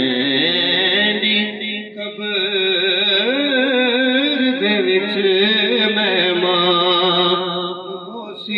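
A man singing a devotional naat into a microphone, drawing out long, wavering melismatic notes without clear words, with a brief pause near the end.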